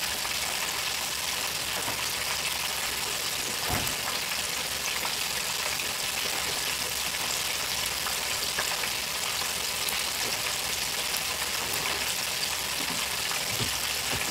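Floured pork chops deep-frying in hot oil (about 375°F) in a Proctor Silex electric deep fryer: a steady sizzle of bubbling oil. A single knock sounds about four seconds in.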